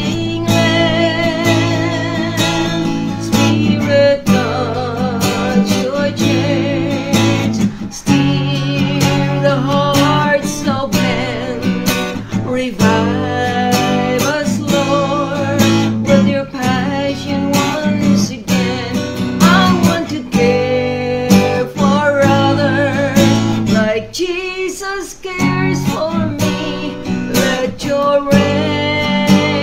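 A woman singing a worship song with vibrato, accompanying herself on a strummed acoustic guitar.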